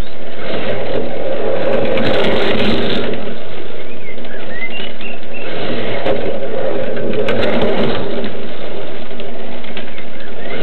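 1:32 slot car's small electric motor whirring steadily as the car laps the track, swelling twice as it comes round, with a few faint squeaks.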